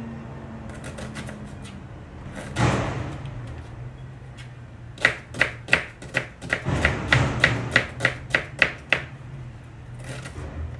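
Knife chopping an onion: a few scattered knocks at first, then a run of quick, even strikes about three a second through the middle and later part.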